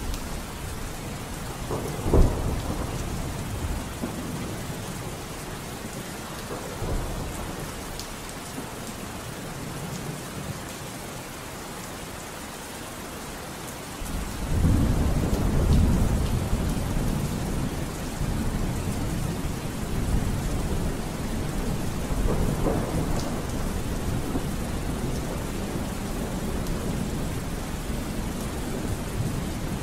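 Steady rain falling, with thunder. There is a sharp clap about two seconds in, then a long low rumble of thunder from about halfway through, with smaller rumbles after it.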